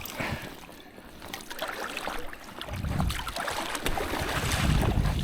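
Outdoor noise beside a flowing creek: wind buffeting the microphone in two low gusts, about three seconds in and again near the end, over a steady rush of water and scattered small clicks.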